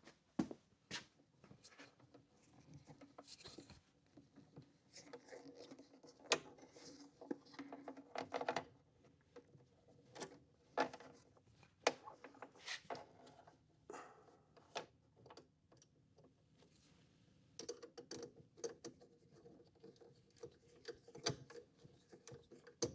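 Faint scattered clicks, taps and scrapes of a Phillips screwdriver and a ground wire being worked into a terminal, with short runs of rapid ticking, as the ground conductor is screwed down.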